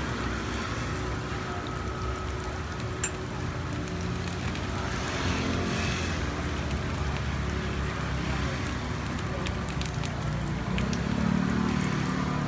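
Takoyaki batter sizzling in a hot takoyaki pan while metal picks turn the balls, with a few light clicks of the picks against the pan. A steady low rumble runs underneath.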